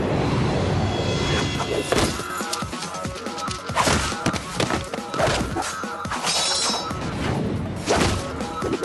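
Fight-scene sound effects of a sword-and-chain brawl: several sharp hits and clashes over steady background music.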